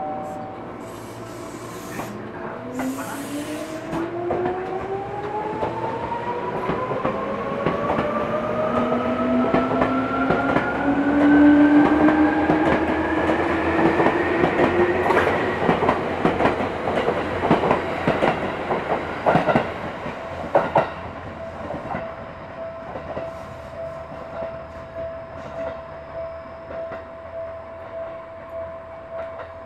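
A Seibu 3000 series electric train pulling away: a short hiss of air near the start, then its traction motors whine in several tones rising together in pitch as it accelerates, fading about halfway through, while the wheels clack over rail joints as the cars pass. A level-crossing warning bell rings steadily through the last third.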